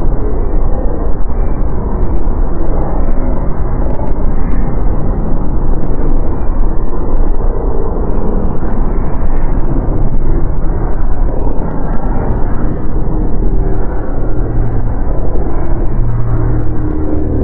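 Dark ambient horror soundscape: a loud, dense, unbroken low rumble, with faint steady low hum tones rising out of it near the end.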